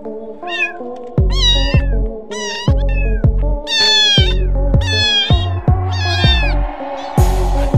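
Domestic cat meowing: a series of about eight short meows, each rising then falling in pitch, over background music whose heavy bass beat comes in about a second in.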